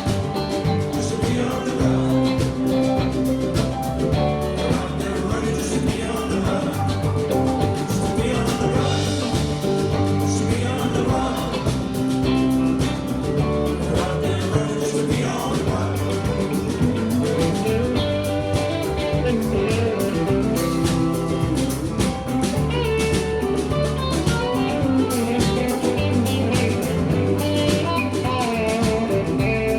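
A band playing a country-rock song: guitar over steady bass and drums.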